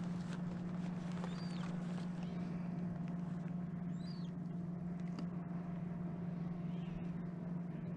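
Small boat motor on a fishing kayak running steadily, a low, even drone that holds one pitch throughout.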